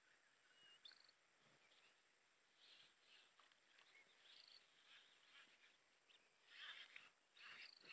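Near silence: quiet riverside ambience with faint, scattered short bird chirps, and a brief cluster of soft noise near the end.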